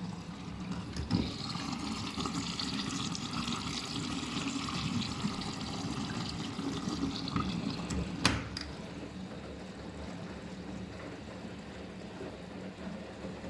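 Siemens iQ500 front-loading washing machine taking in water for a rinse: a steady rush of water flowing in. A sharp click comes about eight seconds in, and the rushing is quieter after it.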